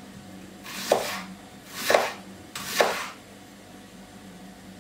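Kitchen knife slicing a red onion into thin rings on a wooden cutting board: three sharp cuts about a second apart.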